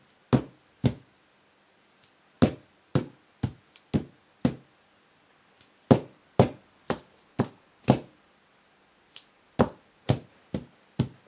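Fingertips tapping on a sheet of paper on a desk, one finger after another, in runs of five taps about two a second with short pauses between runs: a piano fingering drill played on the tabletop with both hands together.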